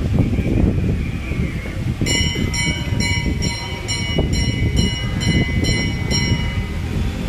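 A low rumbling noise throughout. About two seconds in, a high, multi-pitched beeping tone starts pulsing about three times a second and stops about four seconds later.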